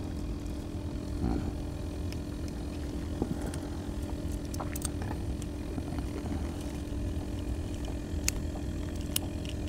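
An engine hums steadily at an even pitch, with a few sharp clicks from scissors cutting a small fish near the end.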